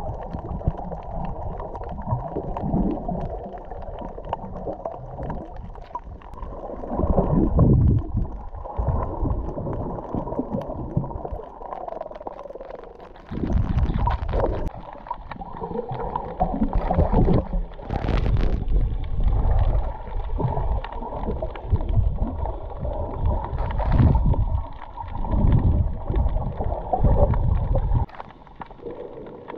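Muffled underwater water noise picked up by a submerged camera during snorkeling: low rumbling and sloshing that swells in repeated surges as the camera moves through the water.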